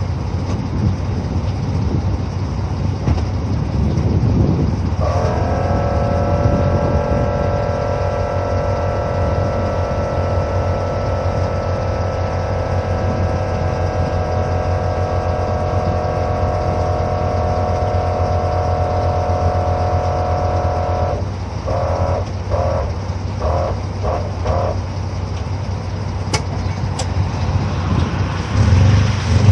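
A 2006 Nissan Xterra running, heard from underneath at the rear axle: a steady low engine and exhaust drone with road noise. About five seconds in, a steady whine of several tones joins. It cuts off about 21 seconds in and gives way to four or five short pulses of the same tones.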